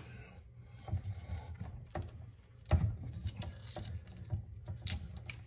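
Scattered small clicks, taps and scrapes of hands working a wire connector, with one louder knock about three seconds in, over a low steady hum.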